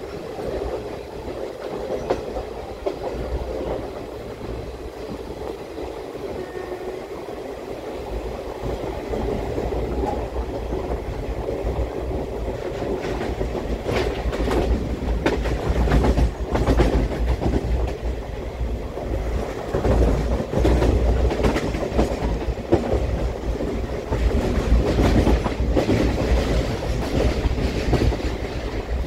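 Indian Railways express train heard from on board: the coaches rumble steadily and the wheels clickety-clack over rail joints. The run gets louder from about halfway through, with sharper clacks bunched near the middle and again near the end.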